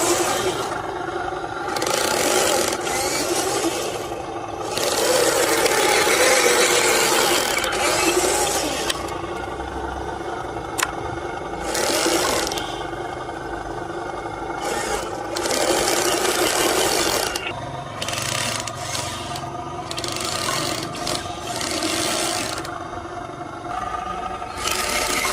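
Radio-controlled truck's small electric motor and gearbox whirring in on-and-off bursts, with scraping and rattling.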